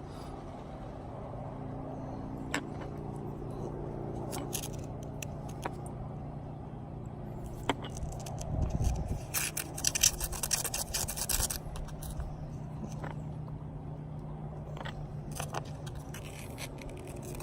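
A drill bit used as a stir stick scraping and clicking around inside a small mixing cup, stirring Plast-Aid repair powder into its liquid activator, with busier bouts of scraping partway through and near the end. A steady low hum runs underneath.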